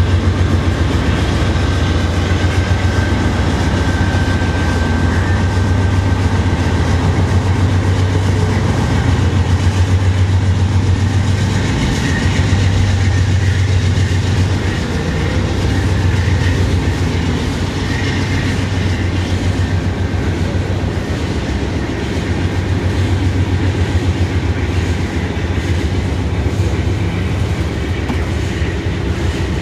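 Freight train cars, covered hoppers and then tank cars, rolling steadily past, with a continuous clatter of wheels over the rails.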